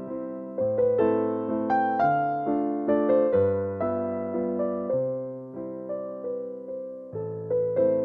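Soft background piano music: notes struck and left to fade, a melody over slow bass notes that change every second or two.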